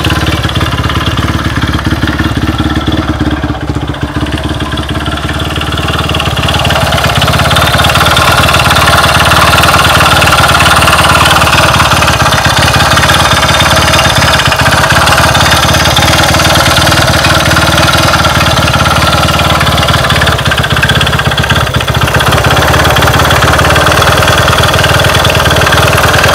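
Honda Ape motorcycle's single-cylinder four-stroke engine running, with an abnormal noise the owner is checking. It dips a little a few seconds in, grows louder by about eight seconds in, then holds steady.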